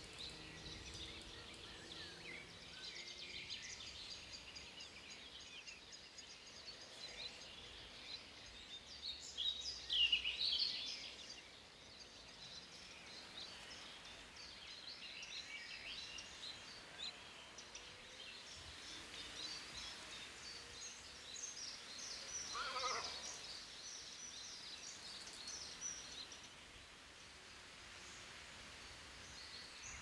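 Countryside ambience of many small birds chirping and singing, with a louder burst of bird calls about ten seconds in. A little past two-thirds of the way through comes one short, lower animal cry.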